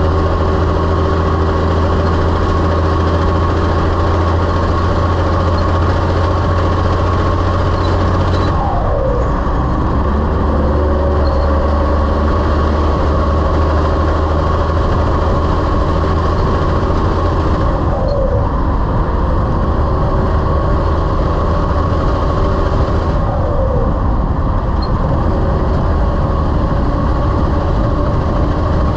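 Heavy-haul semi truck's diesel engine running under load, its engine note dropping sharply three times as it shifts up through the gears.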